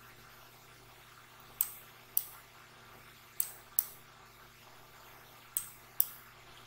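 Computer mouse button clicking: six sharp clicks in three close pairs, over a faint steady hum.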